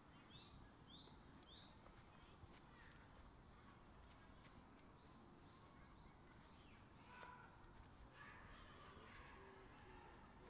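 Faint outdoor ambience with small birds calling: three short, alike chirps in the first couple of seconds, then scattered calls over a low steady hush.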